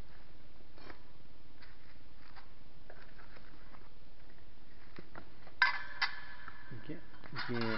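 Metal scooter floorboard plates being unpacked: faint rustling and light taps, then two sharp metallic clinks with a brief ringing as the plates knock together, about five and a half and six seconds in. A short wavering voice-like sound follows near the end.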